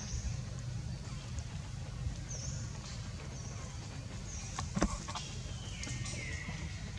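Infant long-tailed macaque crying: thin, high-pitched squeaks that fall in pitch, repeating about once a second, then a longer falling squeal about six seconds in. A sharp knock sounds just before five seconds in, over a steady low rumble.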